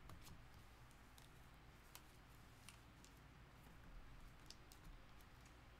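Near silence with a few faint, scattered clicks of plastic card sleeves and top-loaders being handled and shuffled.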